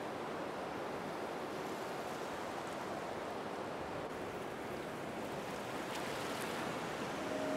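Steady, unbroken rush of ocean surf. Near the end, held music notes fade in over it.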